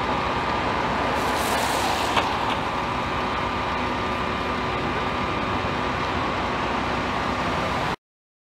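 Fire engines idling: a steady engine drone with a few steady tones running through it. A brief hiss comes about a second in, then the sound cuts off suddenly near the end.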